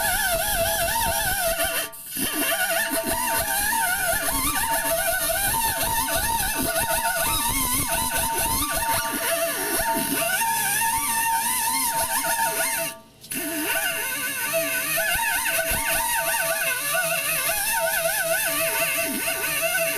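Handheld rotary buffer grinding the rubber inner liner of a truck tire, its whine wavering in pitch as the tool bites and eases. This is the buffing of the area around a sidewall tear, done to prepare it for a patch. The tool stops for a moment twice, about two seconds in and again past the middle.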